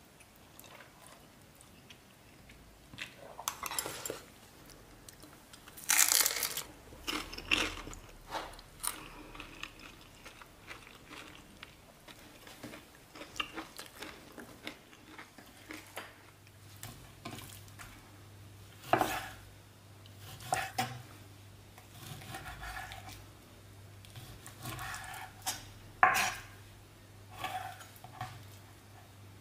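Metal chopsticks and a spoon clinking and scraping against a ceramic bowl as noodles are lifted and mixed, in scattered sharp knocks and clinks, the loudest about six seconds in.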